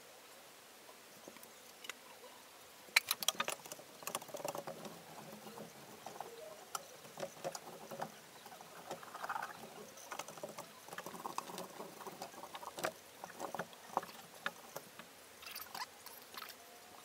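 Irregular clicks, taps and wet handling noises of painting tools: a small paint roller worked in a plastic paint tray and rolled over a cabinet door. The sounds begin about three seconds in.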